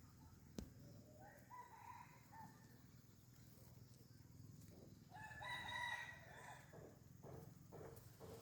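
A rooster crowing twice, faint: once about a second in and again, louder, around five seconds in.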